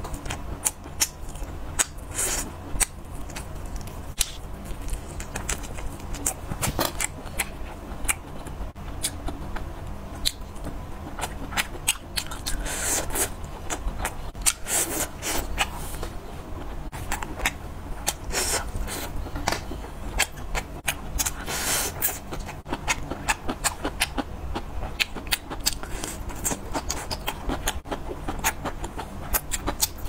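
Close-miked chewing and biting of grilled skewered food: a dense run of crisp clicks, crackles and wet mouth sounds over a steady low hum.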